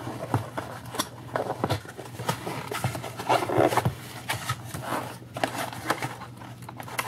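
Cardboard toy box being pried open by hand: the end flap and its tucked tab scraping and rubbing, with irregular small clicks.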